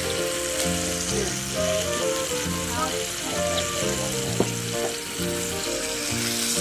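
Ribeye steak frying in a hot cast-iron skillet: a steady sizzling hiss, with music of held notes playing underneath. A single sharp click sounds about four and a half seconds in.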